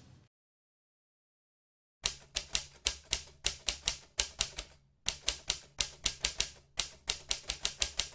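Typewriter keys clacking, starting about two seconds in, as a sound effect for text being typed out on screen: quick keystrikes, about four a second, in runs with short pauses.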